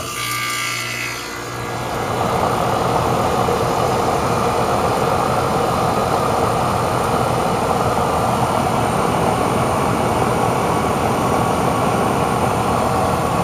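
American Standard air conditioner's outdoor condensing unit kicking on as its contactor is pressed by hand: a low hum at first, then the compressor and condenser fan running steadily from about two seconds in. It is pumping the system down, drawing the refrigerant out of the line as the low-side pressure falls.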